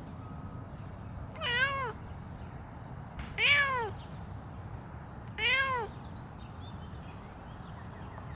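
Grey tabby cat meowing three times, each meow about half a second long and rising then falling in pitch.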